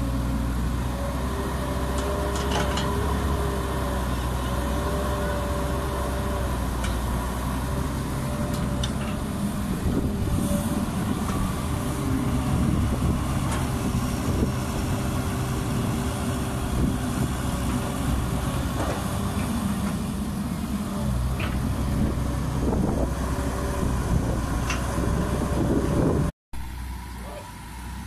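Caterpillar 312B hydraulic excavator's diesel engine running steadily as it digs and loads, with a few sharp clanks. About 26 seconds in the sound cuts off suddenly, leaving a much quieter outdoor background.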